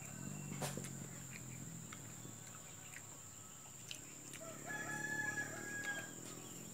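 A rooster crowing once, a drawn-out call lasting over a second, about two-thirds of the way in.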